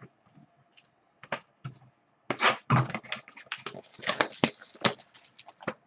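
Baseball trading cards handled on a tabletop: a run of quick clicks and rustles as cards are set down on a stack and picked up again, busiest from about two seconds in.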